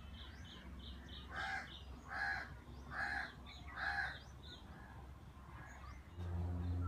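A crow cawing four times, about one caw a second, after a small bird chirps rapidly.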